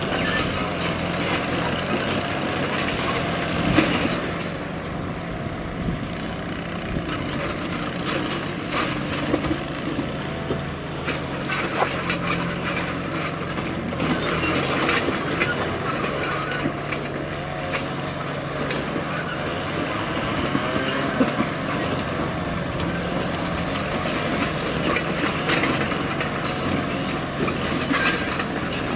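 Bulldozer's diesel engine running steadily, with scattered sharp metallic clanks from the machine at work.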